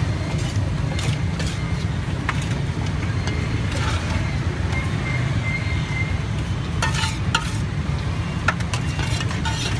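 Metal ladle scraping and clinking against a steel wok as stir-fried greens and meat are scooped out, with frying sizzle, over a steady low rumble. The clinks come in a cluster a few seconds before the end.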